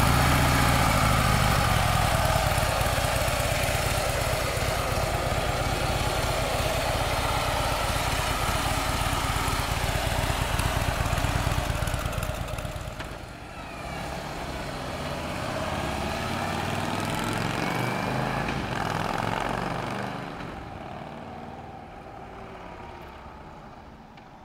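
Harley-Davidson Twin Cam 110 air-cooled V-twin engine running loud and close. After a brief dip about halfway, it swells again with its pitch sliding as the motorcycle rides past, then fades steadily as it rides away.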